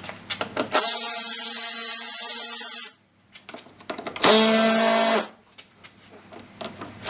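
A cordless power tool with a 10 mm socket spins out underbody panel bolts. Its motor runs with a steady whine for about two seconds, then again for about a second, with light clicks of handling in between.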